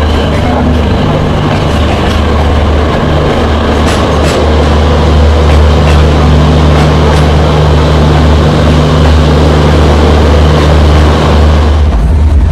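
Passenger train running, heard from beside the coach: steady rumble of wheels on the rails and rushing air with a low hum and a few clicks, growing a little louder as it passes into a tunnel.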